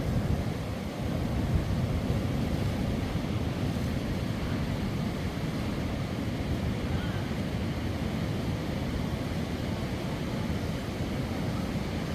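Sea waves washing on the shore with wind buffeting the microphone: a steady, low-heavy noise.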